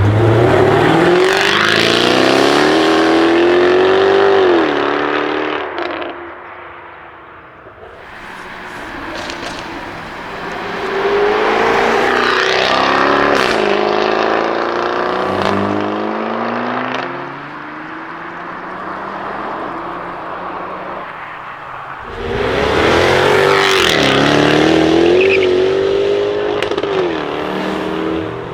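Jaguar F-Type V8 R's 5.0-litre supercharged V8 in three hard accelerations, its pitch climbing and dropping back at each upshift. A few sharp exhaust crackles come between the runs.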